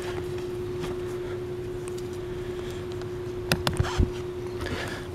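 Folded-down flip-up jump seat on a fishing boat's rear deck being handled: a few sharp clicks and then a low thump about three and a half to four seconds in. A steady hum runs underneath throughout.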